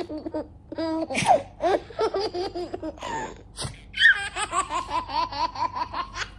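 A baby laughing in bursts, then a long run of quick laughs, about five a second, through the second half.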